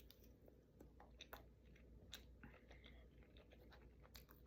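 Faint close-up chewing of crispy plant-based wings: scattered soft mouth clicks and small crunches.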